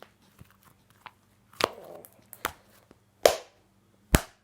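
Homemade glue slime being squeezed and stretched in the hands, giving four short, sharp pops as trapped air bursts out of it.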